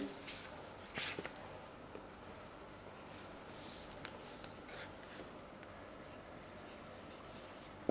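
Marker pen scratching and squeaking faintly on a whiteboard as letters are written, in short strokes with pauses between them. The firmest stroke comes about a second in.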